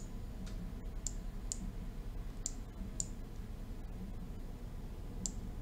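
Computer mouse clicking, about eight short clicks that mostly come in pairs about half a second apart, over a low steady hum.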